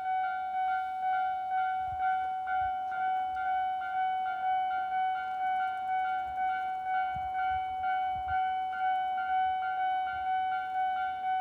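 Japanese railway level-crossing alarm (Tobu Railway's standard electronic crossing bell) ringing continuously in an even, rapid ding-ding of about two to three strokes a second. Two alarm units sound together, the nearer one high-pitched.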